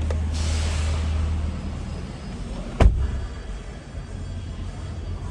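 A steady low hum, then one sharp knock a little under three seconds in.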